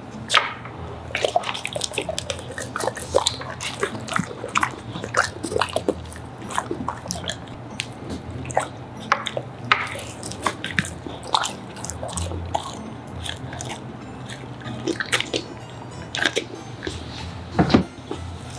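A cane corso chewing and smacking on pieces of bacon and steak taken from a hand, making a dense, irregular run of wet clicks and smacks.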